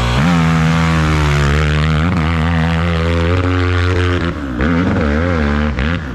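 Off-road hill-climb engine running at high, steady revs for about four seconds, then falling and rising in quick throttle changes near the end.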